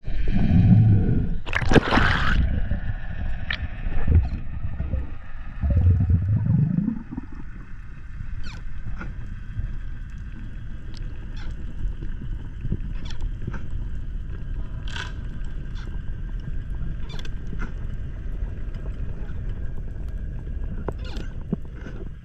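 Underwater sound heard through a camera housing: loud swishing and rushing water for the first seven seconds or so, with a sharp burst about two seconds in, then a steady low underwater rumble with scattered sharp clicks.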